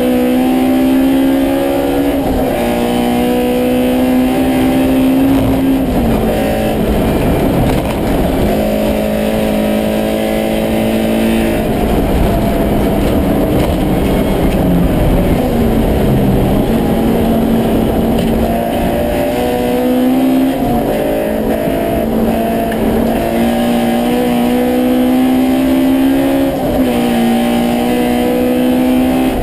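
Honda Civic race car's four-cylinder engine running hard, heard from inside the cabin. Its pitch holds or slowly climbs, then steps abruptly at several gear changes, over steady road and wind noise.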